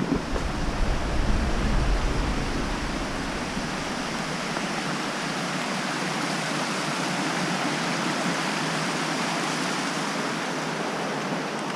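Steady rush of a river's water tumbling over rocks, heard as an even roar, with low rumbling on the microphone in the first few seconds.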